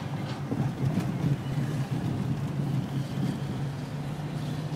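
Steady low drone of a car's engine and tyres heard from inside the cabin while driving.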